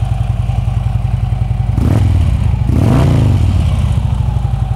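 2012 Harley-Davidson Ultra Classic's Twin Cam 103 V-twin idling through Rinehart Racing mufflers, blipped twice on the throttle about two and three seconds in before settling back to idle.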